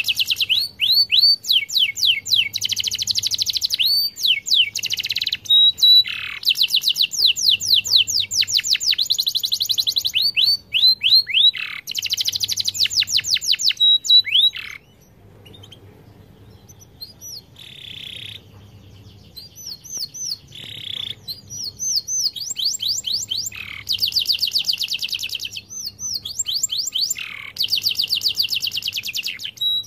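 Canary singing a long, fast song of rapid trills and repeated sweeping notes. The song drops to a few scattered notes about halfway through, then picks up again at full strength.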